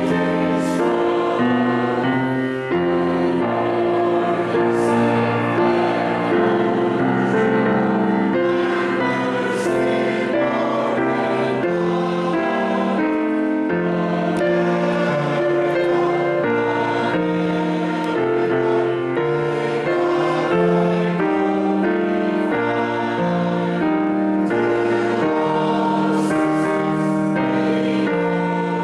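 Church congregation singing a hymn together with accompaniment, held notes changing about once a second.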